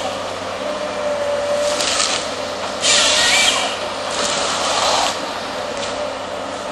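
Volvo excavator's diesel engine running steadily while it works an AFM 58 Husky harvester head. Three bursts of rushing mechanical noise come from the head, the loudest about three seconds in.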